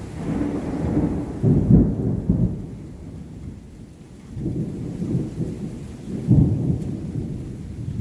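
Thunder rumbling in two rolling swells, the loudest cracks about two seconds in and again about six and a half seconds in, with rain in the background.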